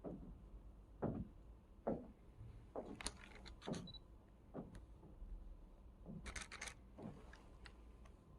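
Faint scattered clicks and soft knocks, roughly one a second, with a cluster of sharper clicks about three seconds in and again near six and a half seconds, over a low steady hum.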